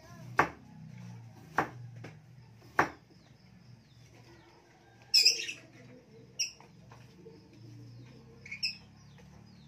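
Large kitchen knife chopping on a wooden chopping block: three sharp knocks about a second apart. About five seconds in comes a louder short high chirp, with a single click after it and another chirp near the end.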